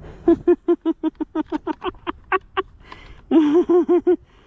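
A man's breathless laughter: quick voiced huffs, about five or six a second, with a longer drawn-out stretch about three seconds in.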